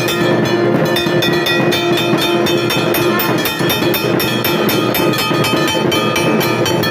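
Hindu temple bells struck rapidly and without pause, their ringing overlapping, with a shankh (conch shell) blown in a long steady note underneath that weakens about halfway through.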